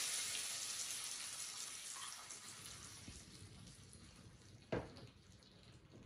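Hot tadka (oil tempering with mustard seeds, cumin, red chilli, hing and curry leaves) sizzling as it hits the buttermilk rasam, the hiss dying away over a few seconds. A single sharp clink near the end.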